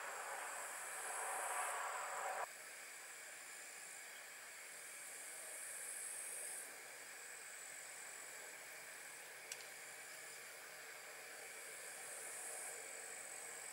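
Camping stove burner hissing under the coffee water, then cut off abruptly about two and a half seconds in as it is turned off; a fainter steady hiss remains, with a single sharp click about nine and a half seconds in.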